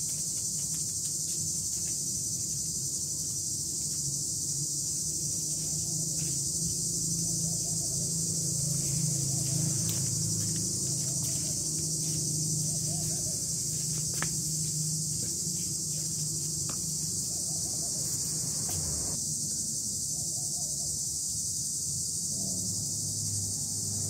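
Cicadas shrilling in a steady, unbroken high-pitched chorus, with a low hum underneath and a few faint clicks.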